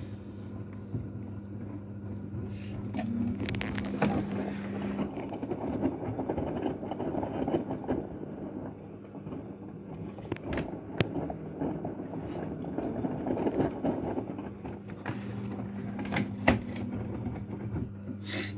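AEG washing machine running: a steady low motor hum, with a louder rough churning of the drum turning the wash from about five seconds in to about fifteen. A few sharp clicks or knocks come through, one near the end.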